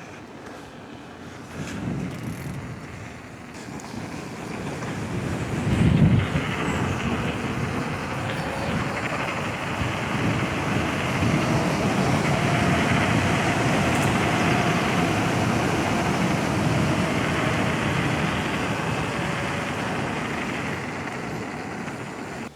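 Wind rushing over the microphone and tyre noise from a mountain bike rolling downhill, growing louder as it picks up speed, with a single thump about six seconds in.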